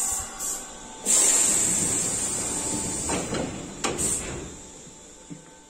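Sanyo Electric Railway train's sliding doors opening about a second in with a sudden loud hiss of compressed air that slowly fades. A couple of knocks follow as someone steps aboard.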